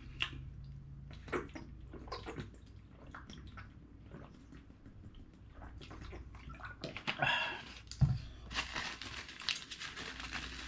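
Someone handling and drinking from a plastic water bottle: small plastic clicks and crackles, then water sloshing and gulps. About eight seconds in the bottle is set down on the counter with a single thump, and paper packets start to crinkle.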